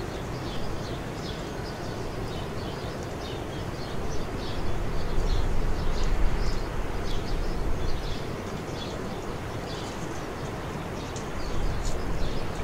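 Outdoor ambience: many small birds chirping over a steady low rumble, which swells about four seconds in and again near the end.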